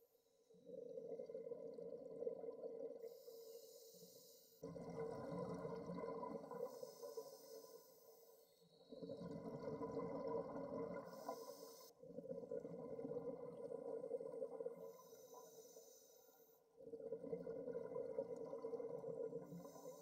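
Scuba diver breathing through a regulator underwater, heard through the camera housing: about five slow breaths, each a low bubbling rumble of exhaled air a few seconds long, with a short higher hiss of inhalation in between.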